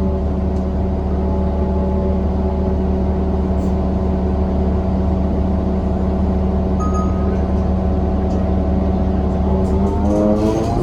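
2014 New Flyer XDE40 diesel-electric hybrid bus running with a horrible-sounding drone of several steady held tones over a low rumble; near the end the tones start to rise in pitch as the bus speeds up.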